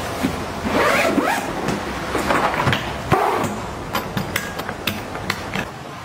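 Suitcase packing: the fabric divider panel rustles and a zipper is drawn in a few quick strokes, then a rapid series of sharp clicks and taps in the second half.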